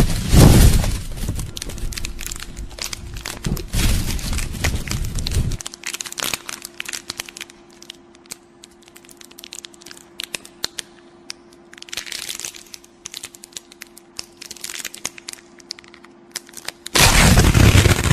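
Horror sound-effect track of sharp cracking and crunching clicks, dense over a low rumble for about five seconds. It then thins to scattered cracks over a faint steady hum. A loud burst of sound comes in near the end.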